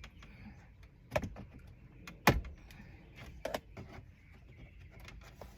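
A few sharp clicks and knocks of plastic interior trim pieces, clips and hand tools being handled while the cup holder area of a minivan console is taken apart. The loudest knock comes a little over two seconds in, with others about a second in and near three and a half seconds.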